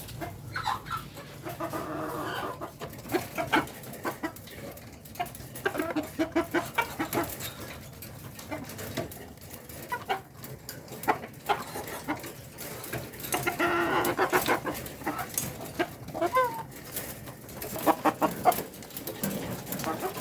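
Domestic village chickens (ayam kampung) clucking in repeated short bursts, with many quick sharp ticks and taps in between.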